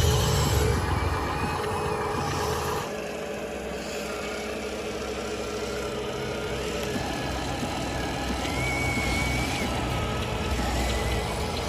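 Remote-controlled toy construction vehicles running, with an engine-like drone and the whine of small electric motors. It is louder with a low rumble for the first few seconds, then steadier and quieter, and a thin wavering whine comes in later.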